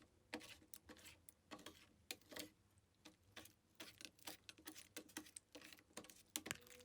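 Clear slime being worked by hand, giving faint, irregular sticky clicks and pops, several a second.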